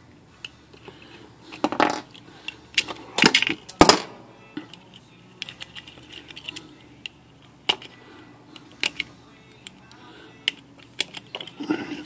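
Sharp metallic clicks and clinks of a coiled steel Oliver No. 5 typewriter mainspring and its drum being handled and worked with pliers. They come irregularly, loudest about two to four seconds in, with another cluster near the end.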